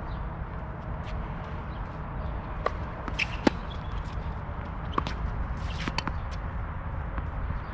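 Tennis rally on a hard court: several sharp pops of racket strings striking the ball and the ball bouncing, spread over a few seconds, the loudest about three and a half seconds in, over a steady low background rumble.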